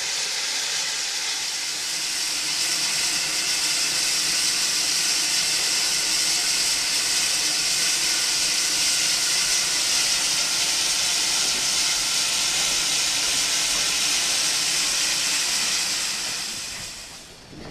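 Steam tank locomotive blowing off steam in a steady loud hiss, which cuts off sharply near the end.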